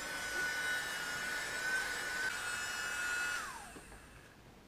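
Small USB-powered keyboard vacuum running with a steady high whine and rushing air. About three and a half seconds in it is switched off, and the whine falls in pitch and fades as the motor spins down.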